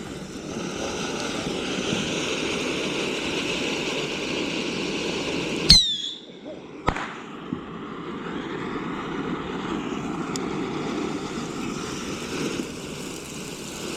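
Consumer fireworks going off: a steady hissing rush, broken by one sharp bang about six seconds in and a smaller crack a second later, after which the hissing carries on.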